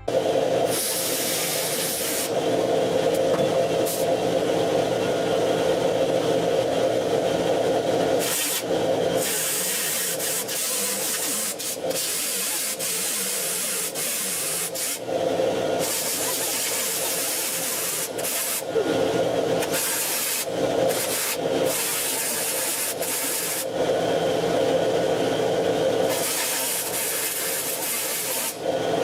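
Angle grinder grinding down welds on a sheet-steel roof patch panel. It runs in long passes of several seconds with short breaks between them.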